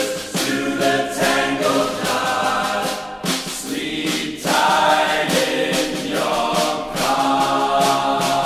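Background music: a choir singing held notes that change every second or so.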